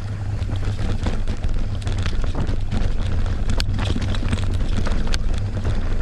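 Mountain bike descending rough trail: wind buffeting the camera microphone in a steady low rumble, with tyre noise and sharp clicks and rattles from the bike over the ground, two of them louder about halfway through and near the end.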